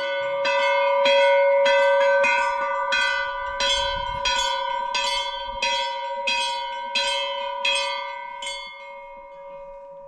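A bell rung with quick repeated strikes, about two a second, its tone ringing on between strikes. The strikes stop near the end and the ringing fades.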